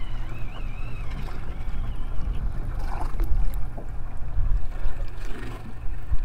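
Steady low rumble of wind and water around a small boat at sea, with a faint wavering whine during the first second or so.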